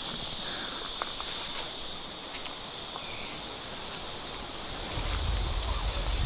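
Steady high-pitched insect chorus in tropical forest, with a few faint clicks. A low rumble builds near the end.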